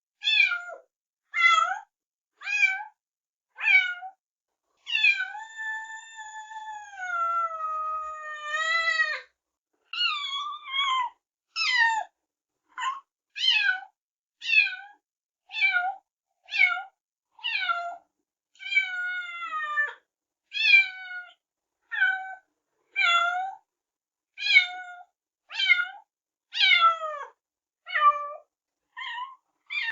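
Kitten meowing over and over, short separate meows about once a second, with one long drawn-out meow about five seconds in.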